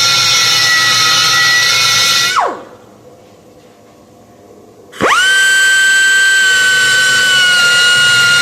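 High-speed rotary power tool whining steadily. About two seconds in it is switched off and spins down with a falling pitch, and about five seconds in it starts again with a quickly rising whine.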